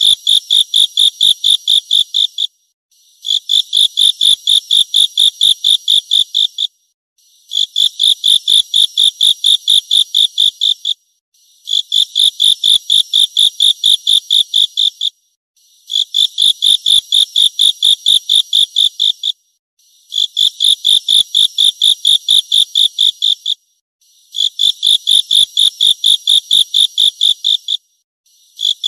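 Grasshopper stridulating: high-pitched chirping phrases of rapid pulses, about five a second, each phrase lasting some three and a half seconds and repeating evenly after short pauses, seven times over.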